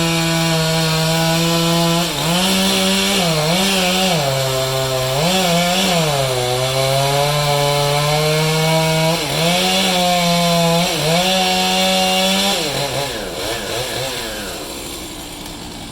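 Chainsaw running at high revs, its pitch dipping and recovering several times as it bogs under load in the cut. Near the end the revs drop away and the sound fades.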